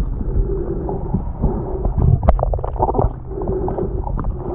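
Underwater sound picked up by a snorkeler's camera while swimming: muffled low rumbling water noise with swishes that recur every second or so, and a few sharp clicks near the middle.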